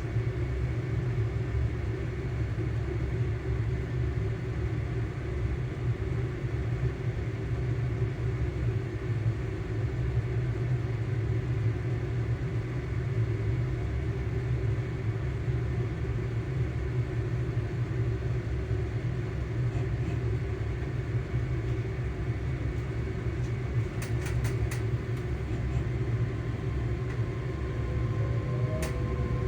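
Cabin sound of a ScotRail Class 385 electric multiple unit on the move: a steady low running rumble with a faint steady traction-motor hum above it. A few sharp clicks come in a cluster about 24 seconds in, and near the end a whine rises in pitch.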